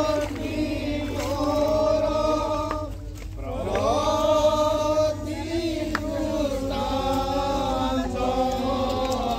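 Voices singing a slow chant, with long held notes that slide between pitches and a short break between phrases about three seconds in.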